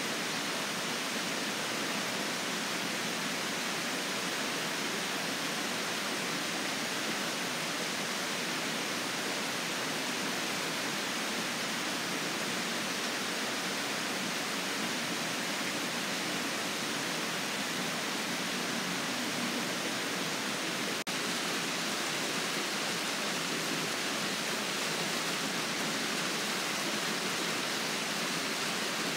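Rainwater pouring over a spillway weir and rushing down a concrete channel, a steady, unbroken rush of water; the spillway is running full after heavy rain.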